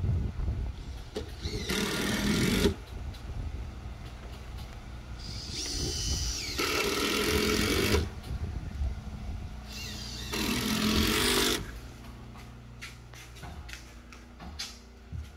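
Power tool running in three bursts of about a second each, with a whining spell before the second burst, as on a construction site; a few light clicks and knocks follow near the end.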